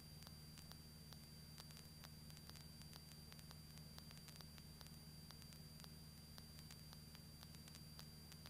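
Near silence: a faint steady low hum under static hiss, with a thin steady high whine and scattered faint clicks, as on a cockpit intercom recording.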